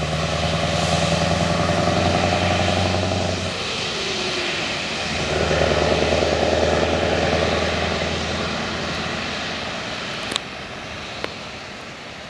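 Scania 164L 480 truck's V8 diesel pulling away and driving off. Its steady engine note drops for about a second and a half, about three and a half seconds in, as it changes gear, then picks up again and fades into the distance. Two sharp clicks near the end.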